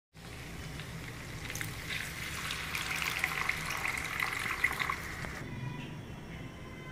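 Warm water being poured into a large kadai of browned chicken and potato curry, splashing over the pieces with a dense crackle against the hot pan. The crackle eases about five seconds in as the liquid settles into gravy.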